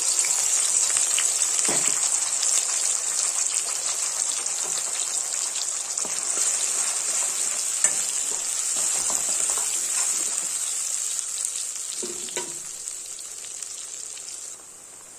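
Wet tomato, green chilli, garlic and ginger paste sizzling loudly in hot mustard oil in a kadai, with a few knocks of the spatula as it is stirred. The sizzle drops off sharply near the end.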